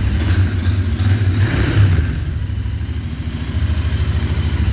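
Royal Enfield Interceptor 650's 648 cc parallel-twin engine idling through its stock exhausts, with a short swell in loudness about a second and a half in.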